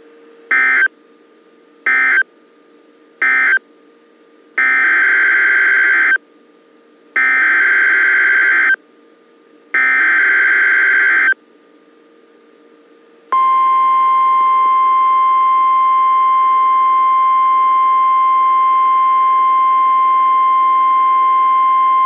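NOAA Weather Radio Emergency Alert System data tones. Three short screeching bursts of SAME code, the end-of-message signal after the tornado warning, are followed by three longer bursts, the SAME header of the next alert. About 13 seconds in, the steady 1050 Hz warning alarm tone starts and holds for about nine seconds.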